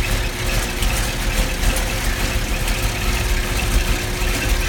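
GM LS V8 with a stage 2 cam idling, its idle jittery and uneven from the cam. A ticking runs over it that sounds like valve train noise.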